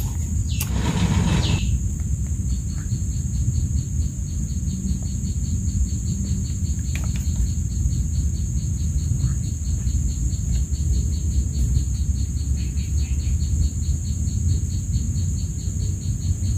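Insects in the swamp vegetation: a steady high buzz, joined a couple of seconds in by a rapid, even chirping pulse, over a loud low steady rumble. A short rustle comes about a second in.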